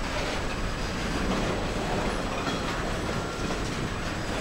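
Double-stack intermodal freight train's well cars rolling past: a steady noise of steel wheels running on the rails.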